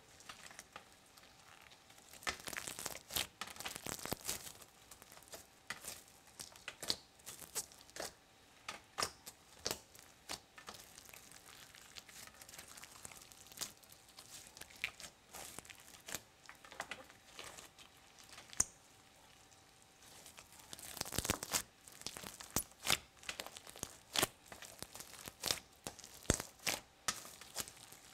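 Thick slime mixed with beads and sprinkles being stretched, folded and pulled apart by hand: sticky crackling and popping as it stretches and tears. The crackling comes in busier flurries a couple of seconds in and again about two-thirds of the way through.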